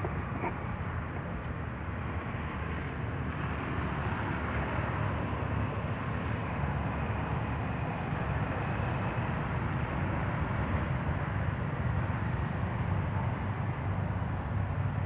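Steady outdoor background noise: a low rumble with a hiss over it and no distinct events. A faint high buzz swells twice.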